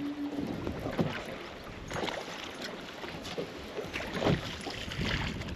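Choppy water slapping against a bass boat's hull, with wind on the microphone and several sharp knocks and splashes. A steady hum stops about half a second in.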